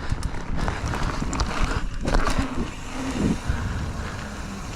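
Mountain bike being ridden over rough ground and a small jump: wind rushing over the microphone, tyres rumbling, and a run of knocks and rattles from the bike.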